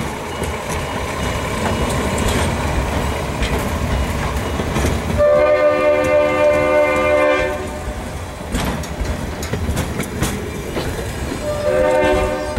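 Alco RS-3 diesel locomotive passing, its engine rumble and wheel noise building, sounding its horn in one long blast of about two and a half seconds midway, then starting another blast near the end.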